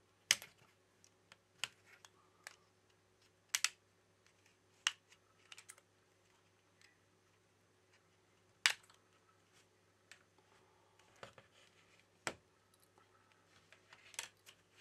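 Snap-in clips of an LG K61's plastic middle frame popping loose one at a time as a plastic pick pries it off: sharp single clicks a second or several apart, with faint scraping and handling between them.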